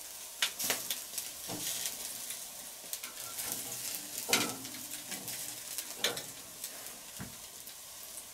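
Ribs sizzling on a wire grate over hot charcoal, with fat dripping into the embers, and metal tongs clicking and scraping on the grate every second or two as the pieces are moved.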